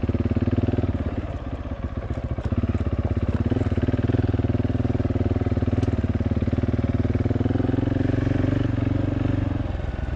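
Husqvarna 701 LR single-cylinder dual-sport motorcycle engine running under light throttle while the bike is ridden over rocky ground. The engine dips briefly about a second in and eases off near the end, with a few faint clicks from the rocks.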